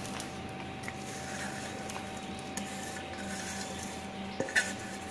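Chopped onions and green chillies being scraped by hand off a steel plate into a bowl of flour: soft rubbing and rustling, with two sharp taps about four and a half seconds in.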